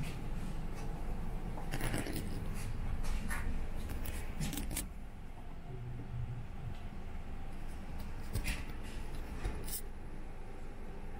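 Suzuki GSX-S1000's 999 cc inline-four idling steadily, a low even hum, with scattered clicks and rustles from close handling and movement around the bike.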